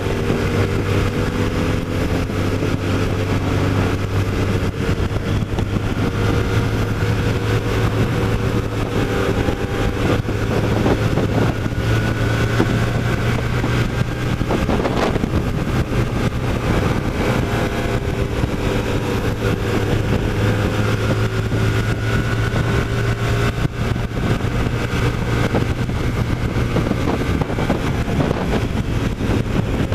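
Hyosung GT125R's 125cc V-twin engine running under way at a steady cruise, its pitch drifting gently with the throttle. It is heard from a helmet-mounted camera, under a constant rush of wind and road noise.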